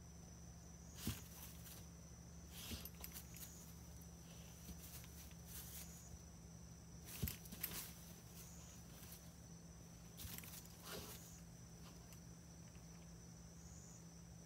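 Near silence: room tone with a steady low hum and a faint, steady high whine, broken by a few soft knocks and rustles of handling.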